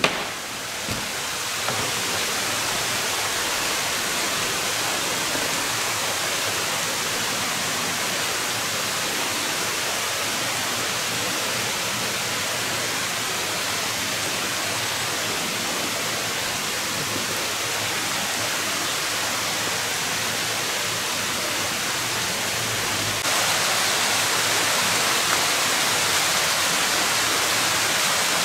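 Steady rushing noise like running water, with no breaks, stepping up a little in level about five seconds before the end.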